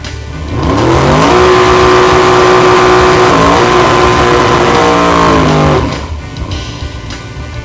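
Drag-racing Chevrolet Impala's 427 big-block V8 heard from inside the car, revving hard. The pitch climbs steeply in about a second and holds high and steady, with a brief dip and recovery partway through, like a gear change. The pitch then falls and the engine sound cuts off abruptly, with music on either side.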